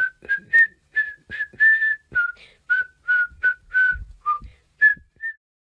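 Whistled tune of quick, short breathy notes that hover around one middle pitch, stopping about five seconds in.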